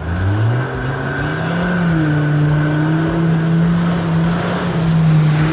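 Land Rover Defender's engine revving up hard over about a second and a half, then held at high revs as the truck ploughs through deep mud, with water and mud splashing.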